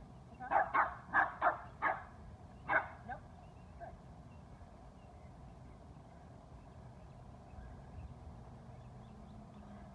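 A puppy yapping: six or seven quick, high barks in the first three seconds or so.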